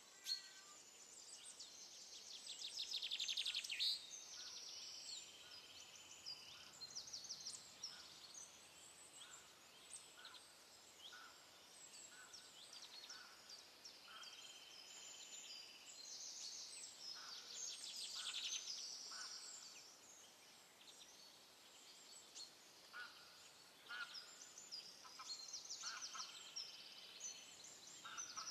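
Birds chirping and calling, quietly, with bursts of rapid high trills a few seconds in and again around the middle, a few longer held high notes, and scattered short chirps throughout.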